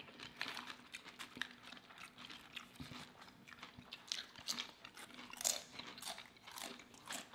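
Two people eating: a run of short, crisp crunches from potato chips being bitten, with chewing of fried bologna sandwiches. The loudest crunch comes about five and a half seconds in.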